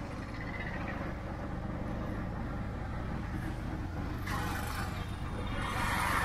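Auto-rickshaw ride through city traffic, heard from the passenger seat: the small engine's steady low rumble. Brief swells of passing-traffic noise come about four and six seconds in.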